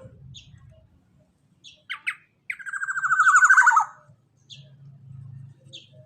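Black-naped oriole (kepodang emas) calling: two short notes, then a loud, rapid harsh trill lasting over a second that drops in pitch at the end, with scattered short high chips.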